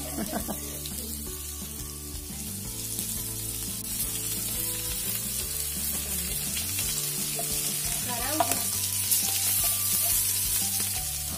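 Masala-coated Indian mackerel (bangda) sizzling in hot oil in a pan, with a metal spatula scraping as the fish are turned. The sizzle grows louder toward the end, with a few sharp clicks of the spatula near the end.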